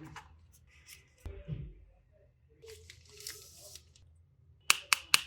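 Smartphone packaging being handled during an unboxing: a soft thump about a second in, a papery tearing rustle around the middle, then three sharp clicks in quick succession near the end.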